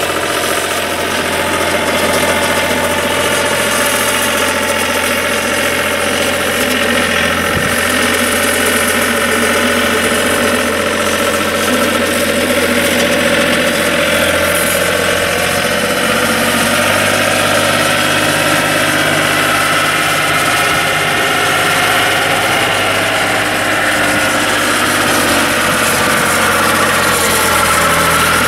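John Deere 5310 tractor's three-cylinder turbo diesel engine running steadily at low speed as the tractor is driven, its pitch dipping and rising slightly now and then.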